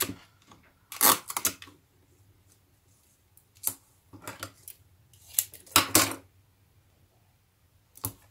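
Crafting sounds at a tabletop: sellotape pulled from a reel and torn, paper strips pressed and handled on a cutting mat, and a scissors snip near the end. It comes as about six short rasps and clicks with quiet between them, the loudest about a second in.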